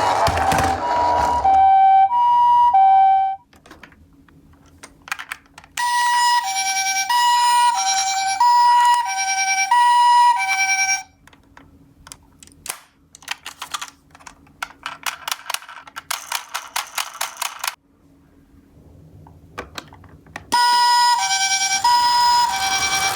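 A toy ambulance's electronic two-tone siren, the Japanese "pee-po" ambulance pattern, alternating between a high and a low note about once a second. It stops about three seconds in, comes back at about six seconds, stops again at about eleven, and restarts near the end. Between the spells of siren there is a run of rapid plastic clicking.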